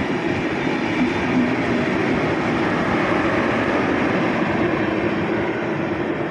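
An Indian Railways AC double-decker express train passing close by on the near track, its coaches and tail-end luggage-brake-and-generator car running over the rails with a steady, loud rumble of wheels.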